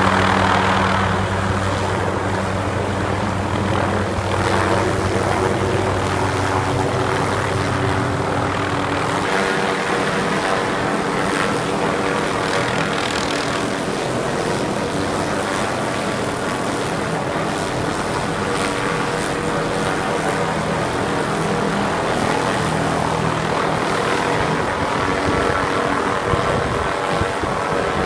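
Small helicopter hovering close by while stringing rope along power-line poles, a loud, steady rotor and engine drone. Its deepest tones drop away about nine seconds in.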